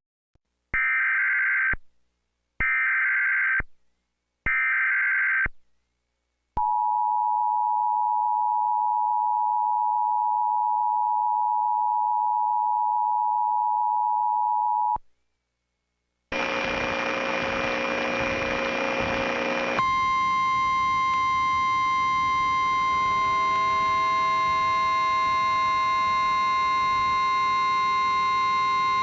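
Emergency Alert System tones: three short bursts of the digital SAME header data, then the two-tone attention signal held steady for about eight seconds. After a brief pause comes a stretch of hiss, then about 4 s later a harsher, buzzier steady alert tone.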